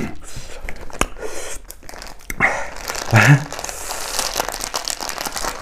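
Thin plastic bag crinkling as it is handled and squeezed open, starting a little over two seconds in, after a few scattered small clicks. A brief low voice sound is heard about three seconds in.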